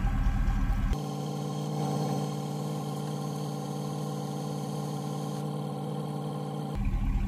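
2003 GMC Yukon Denali idling with a steady hum, left running so its air suspension can raise the squatting rear. A louder, rougher low rumble comes in the first second and again near the end.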